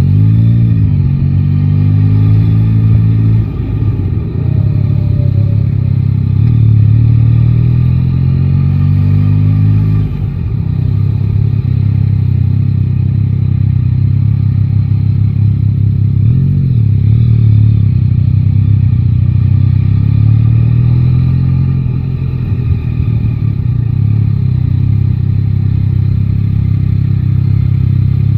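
Yamaha Tracer 9 GT's inline three-cylinder engine, heard from the rider's seat, pulling away through the gears: the revs rise for a few seconds, drop at a gear change, and rise again. After that it runs at a steadier pitch, with small swells in the revs.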